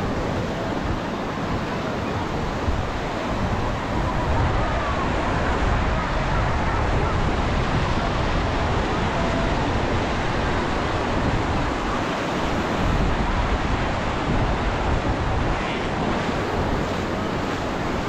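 Surf washing onto the beach in a steady wash of noise, with wind buffeting the microphone in a low rumble.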